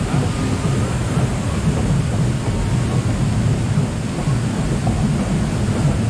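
Steady low rumble of a river-rapids raft riding up the ride's conveyor lift, with water rushing around it.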